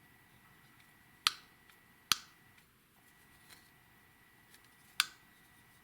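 TWOSUN TS27 folding knife being worked open and shut: three sharp metallic clicks of the blade snapping on its ball bearing pivot and the liner lock engaging, with a few faint ticks between.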